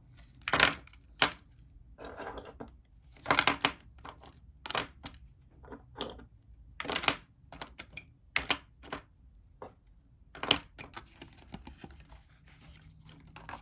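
Small wargaming miniatures being handled at a clear plastic container and set down on a tabletop: irregular sharp clicks and taps, the loudest about half a second in and about three seconds before the end.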